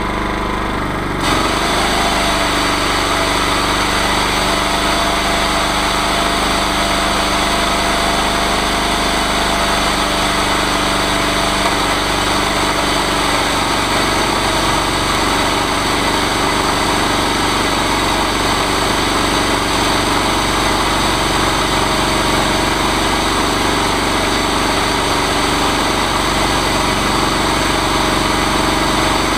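Engine of a chainsaw milling machine running steadily. About a second in, the sound steps up and turns louder and harsher, then runs on evenly.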